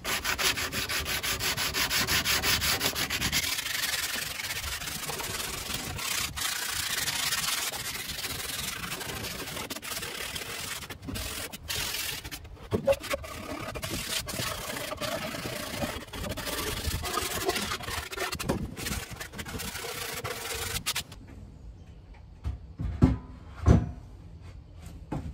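Sandpaper rubbed by hand along the edges of an OSB and pine-board shelf to take off burrs left around the screws, in quick back-and-forth strokes. Near the end it stops, and two knocks follow as the wooden shelf is set down over the sink.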